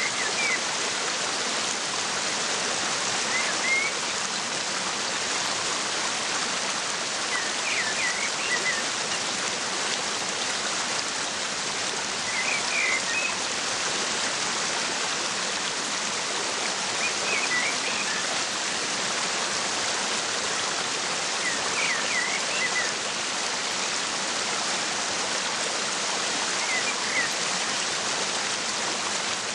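Waterfall rushing steadily, with a bird giving short bursts of chirps about every four to five seconds.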